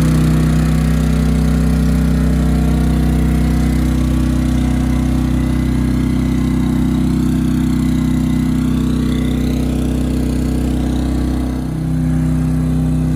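maXpeedingrods MXR3500W portable inverter generator running steadily under a 1500-watt load, its engine note dipping briefly about eleven seconds in and then steadying again.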